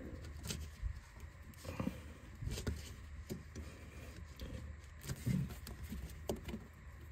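Faint scattered rustles and small knocks of fingers gripping and tugging a rubber steering-rack boot to work it back along the rack, over a steady low hum. A short low-pitched sound comes a little past five seconds in.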